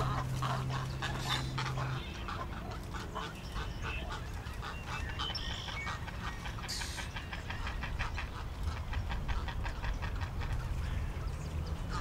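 Nesting waterbirds in a rookery colony calling: a dense, overlapping chorus of harsh, rapid calls.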